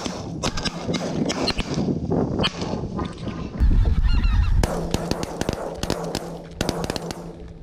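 Geese honking, many short calls in rapid, overlapping succession. A gust of wind buffets the microphone briefly about halfway through.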